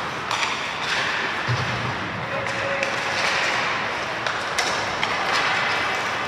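Ice hockey game sounds in a rink: a steady din of crowd voices and play. A few sharp clacks and one dull thud about a second and a half in stand out from it.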